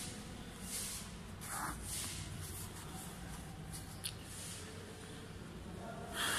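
Pen scratching across lined notebook paper in several short strokes as words are written and underlined, with a brief click about four seconds in.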